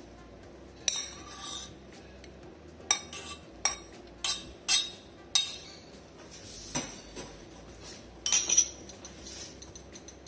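Boiled lemon wedges and garlic cloves tipped from a stainless steel pot into a plastic blender cup: a string of sharp clinks and knocks of metal and plastic, about six in quick succession in the middle and a short cluster near the end.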